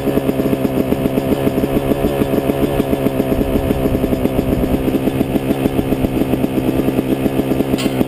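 2005 Yamaha YZ250 two-stroke single-cylinder dirt bike idling steadily under the rider, with an even, fast pulsing beat and no revving. There is a short click near the end.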